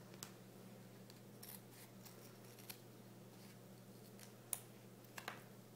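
Scissors cutting through folded duct tape: several faint, short snips spread through a few seconds, the clearest about four and a half seconds in, over a steady low hum.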